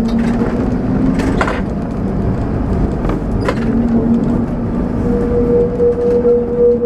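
Lisbon tram 28 heard from on board while running: a steady electric motor hum over the rumble of steel wheels on the rails, with a few sharp clanks. From about five seconds in, as the tram rounds a bend, a steady higher tone joins and pulses in loudness.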